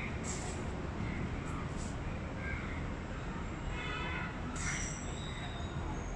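Steady background rumble, with a brief pitched animal call about four seconds in.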